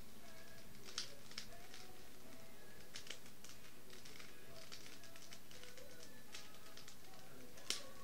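Rubik's Cube being turned by hand: irregular plastic clicks and clacks as the layers turn, with one sharper click near the end.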